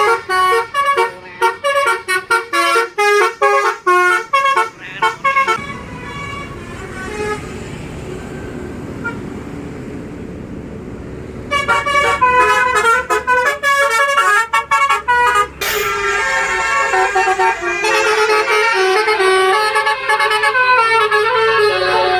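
Bus's multi-note musical air horn (basuri telolet horn) playing a tune in quick staccato notes, then falling silent for several seconds under engine and road noise. Roughly halfway through the horn tune starts again and goes on in longer, held chords.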